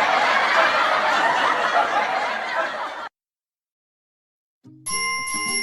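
Cartoon-style giggling and laughter over the close of a children's song for about three seconds, then a sudden cut to silence, then a bright bell-like melody of glockenspiel-type tones starting near the end.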